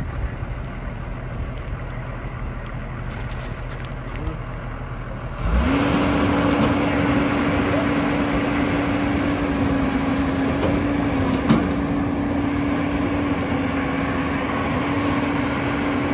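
JCB 215 tracked excavator's diesel engine idling, then picking up to a higher, steady speed about five seconds in, with a steady whine over it. A single sharp knock near the end.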